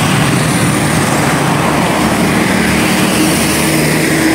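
Tour bus diesel engine running close by, loud and steady.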